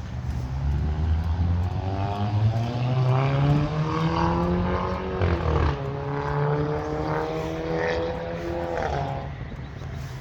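An engine passing close by, its pitch rising and then dropping sharply about five seconds in as it goes past, with a second drop near nine seconds.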